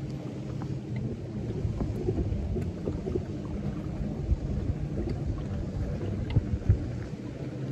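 Wind buffeting the microphone with a low rumble, over choppy water lapping and slapping against a fishing boat's hull. Two sharper thumps come near the end.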